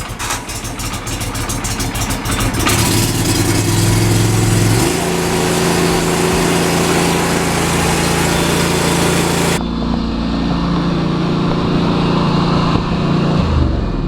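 Turf Beast walk-behind mower's engine running just after starting, with fuel stabilizer freshly added to the tank. It speeds up about five seconds in, turns abruptly duller in tone about ten seconds in, and slows down near the end.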